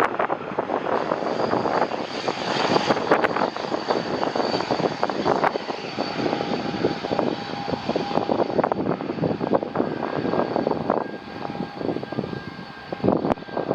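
Jet airliner on landing approach: loud, crackling engine noise with a thin high whine held over it, easing a little near the end.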